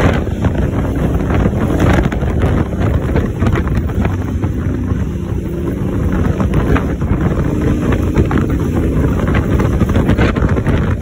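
Honda Africa Twin's parallel-twin engine running steadily on the move, mixed with wind buffeting the microphone.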